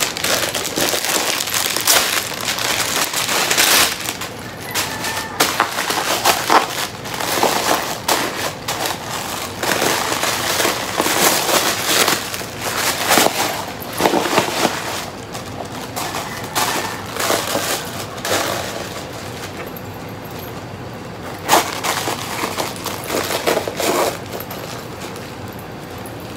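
Clear plastic packaging crinkling and rustling in irregular bursts as a bag is pulled from its wrap and handled, growing sparser near the end.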